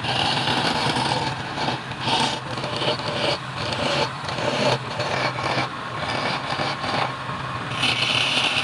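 Wood lathe running with a steady motor hum, while a turning tool cuts the spinning wood in repeated bursts of hiss, the strongest near the end.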